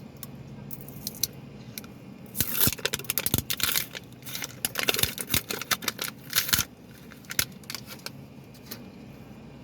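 Plastic wrapping on toy packaging crinkling and crackling as it is torn and pulled off by hand, in a dense run of crackles from about two to nearly seven seconds in, with scattered clicks before and after.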